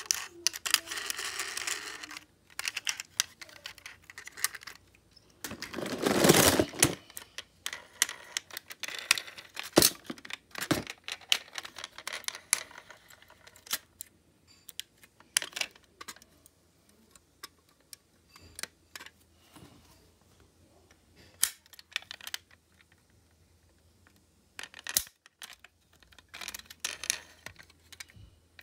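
Die-cast model cars being handled: scattered small clicks and taps of plastic and metal parts, with a louder rubbing scrape about six seconds in.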